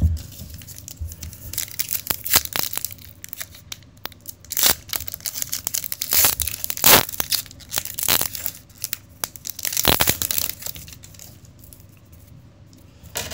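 Foil wrapper of a trading-card pack being torn open and crinkled: a run of sharp, uneven rips and rustles, with the loudest tears past the middle.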